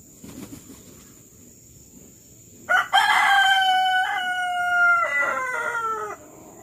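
A rooster crowing once: a long call of about three and a half seconds, in several joined parts, that falls in pitch at the end.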